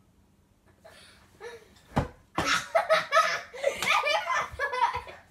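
Children laughing and shrieking loudly, after a single sharp thump about two seconds in.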